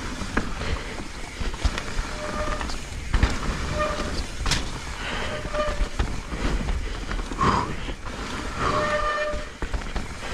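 Mountain bike descending a wet, muddy trail: steady tyre and rattle noise with knocks and one sharp clack about halfway through. Short honking squeals recur five or six times as the disc brakes are applied, the squeal of wet brakes.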